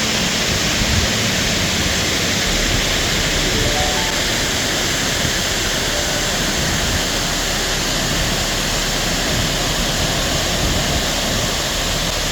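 Water pouring over a wide, old dam waterfall: a steady, loud rushing, with wind buffeting the microphone.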